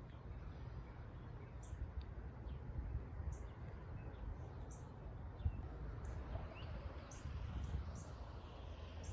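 Faint outdoor ambience: a steady low rumble of light wind, with scattered short, faint bird chirps.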